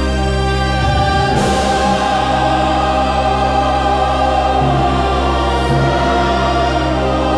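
Slow, dark orchestral music with a choir of ethereal female voices singing long held notes over a steady low drone. A brighter shimmering swell comes in about a second and a half in.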